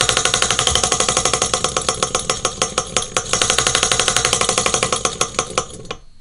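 Mechanical alarm bell ringing: a fast, even rattle of hammer strokes, about ten a second, which loosens and stops about six seconds in as a hand reaches over to silence it.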